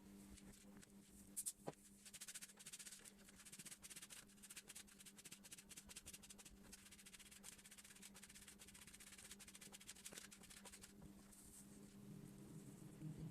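Faint rapid scraping strokes for about nine seconds, after a couple of light knocks, over a steady low hum.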